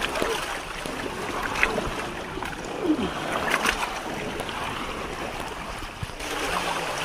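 Sea water lapping and splashing against a bamboo raft, with a few short, sharp splashes or knocks.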